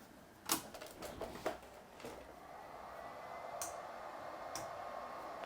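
A few sharp clicks of equipment being handled and switched, then a hot-air rework station's blower starting up and running as a steady airy whir that builds slightly, heating up for a CPU rework on a motherboard.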